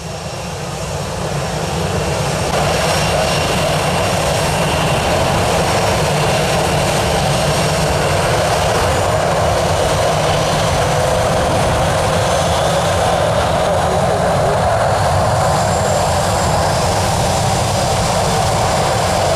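Jet engines of a Southwest Boeing 737 running on the airfield: a loud, steady rush with a faint high whine on top, building over the first couple of seconds and then holding level.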